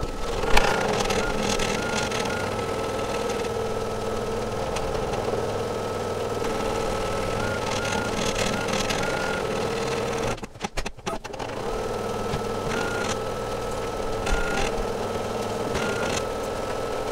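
Brother SE1900 embroidery machine stitching the tack-down line through batting and tear-away stabilizer: a steady motor whine with the needle's rapid stitching, stopping briefly about ten seconds in and then starting again.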